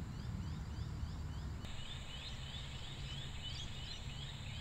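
Quiet outdoor ambience at dusk: a steady low rumble under a regular series of short, high, rising chirps, about three a second, that grow louder about one and a half seconds in.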